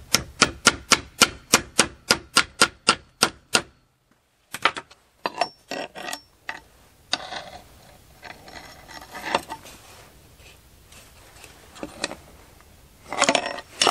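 Small sledge hammer tapping a chainsaw chain-brake part set on a steel block: about fifteen quick metallic strikes, some four a second, each with a short ring, for nearly four seconds. After that come scattered clicks and clatter of metal parts being handled and fitted, with a louder burst of clatter near the end.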